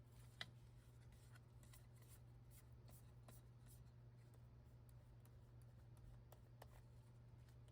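Faint, scattered clicks of keys being pressed on a MacBook Pro A1708's butterfly keyboard, with one sharper click about half a second in, over a low steady hum.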